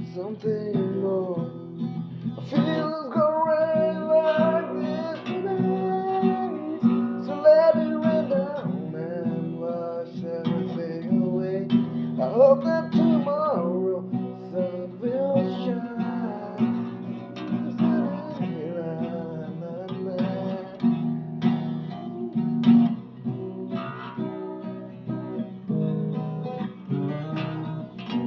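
Acoustic guitar strummed with a voice singing over it.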